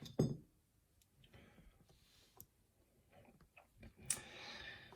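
Small metallic clicks of lock pins and springs being handled as a lock's core is gutted: a sharp click just after the start, scattered faint ticks, and another sharper click about four seconds in.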